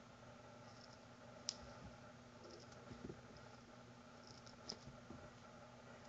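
Near silence with a few faint clicks and soft taps from a kitten playing on carpet and a sisal scratcher; a sharp click comes about one and a half seconds in and another about two-thirds of the way through.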